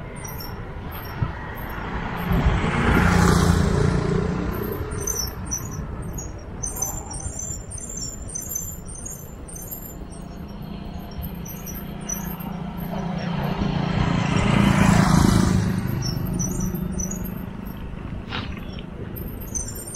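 A motorcycle passes the moving bicycle about three seconds in, and another motor vehicle passes about fifteen seconds in, each engine swelling and fading as it goes by. Wind rumbles on the microphone throughout, with steady high-pitched chirping in the background.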